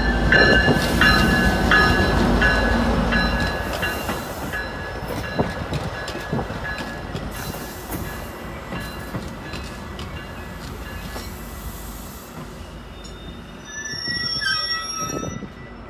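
A Metra F40PHM-2 diesel locomotive passes close with a low engine rumble, loudest at the start, followed by bilevel passenger coaches rolling by on the rails. A bell dings repeatedly and fades out partway through, and a brief wheel squeal comes near the end.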